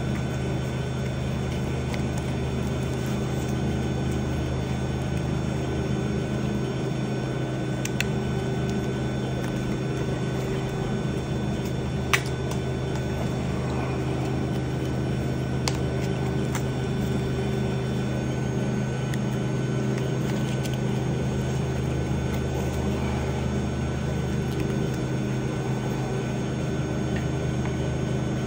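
Steady machine hum at one constant low pitch, with a few sharp clicks over it, the loudest about twelve seconds in.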